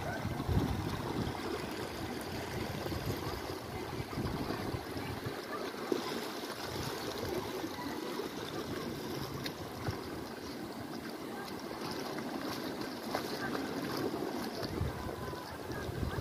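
Steady rushing of water running down the travertine terraces and cascades, with gusts of wind on the microphone.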